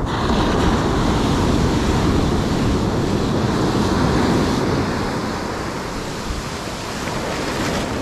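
Ocean surf breaking close by on a sandy beach: a wave crashes right at the start and its whitewater rushes up the shore, the wash easing off over the second half.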